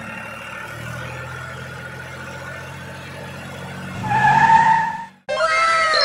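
Small motor of a homemade toy tractor running with a steady hum. About four seconds in, a brief wavering tone sounds. Near the end comes a cartoon 'wow' sound effect, several tones sliding down in pitch together.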